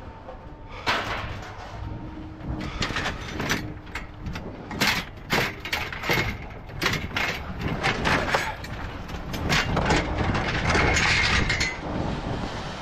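Scrap metal clattering and crashing as it is dumped off the trailer onto the scrap pile: an irregular run of sharp clanks and crunches, thickest in the second half.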